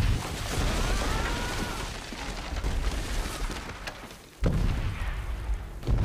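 Naval shellfire bombardment: a continuous low rumble of shell explosions, with whistling shells early on. The loudness dips, then a sudden heavy blast comes about four and a half seconds in, and another just before the end.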